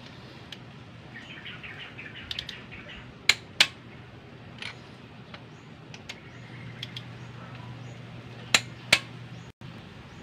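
Click-type torque wrench clicking as it reaches the set torque on the cylinder head bolts of a Nissan GA16 engine. Two sharp clicks come in quick succession about a third of the way in, and two more near the end.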